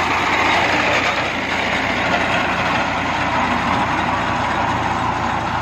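Tractor engine running steadily as it drives a front-mounted reaper-windrower cutting standing wheat.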